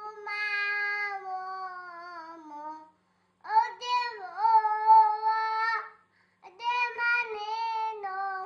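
An 18-month-old girl singing three long, drawn-out phrases in a high child's voice, with short breaks between them; the first phrase slides slowly down in pitch.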